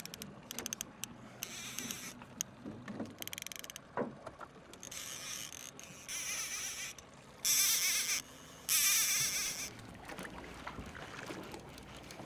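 Trolling reel on a rod fighting a hooked fall Chinook salmon: rapid clicking from the reel, then several loud buzzing bursts of about a second each as the drag gives line to the running fish.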